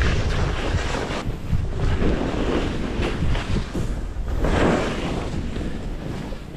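Wind buffeting the microphone while skis hiss and scrape through soft snow on a steep descent. The noise swells with the turns, loudest twice, about two and a half and four and a half seconds in.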